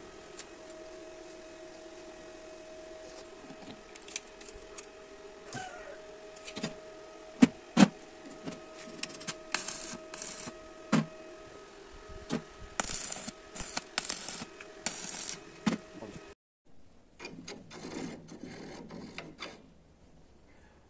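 Steel brackets and parts knocked, scraped and clinked together while being fitted to a small pulley-driven air compressor on a steel welding table, with two sharp metal knocks at about 7.5 and 8 seconds in. A faint steady hum runs underneath until it cuts off about 16 seconds in, after which quieter handling noise follows.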